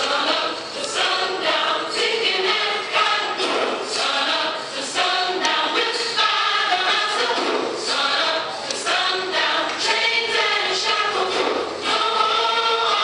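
A choir singing, many voices together.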